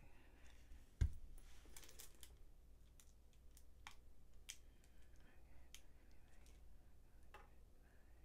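Faint, scattered clicks and taps of small tools and items being handled and set down, with one low thump about a second in.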